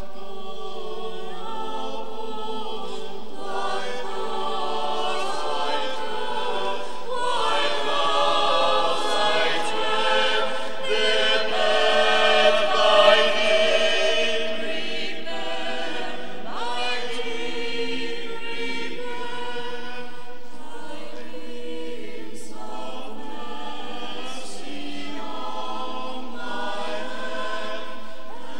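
Mixed choir of women's and men's voices singing a cappella, swelling to its loudest about halfway through, then settling back.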